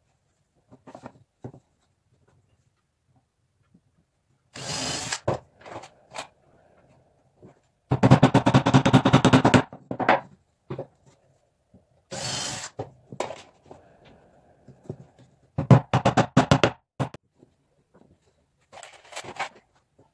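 A power tool run on wood in several short bursts, the longest about a second and a half, with clicks and knocks of handling between them.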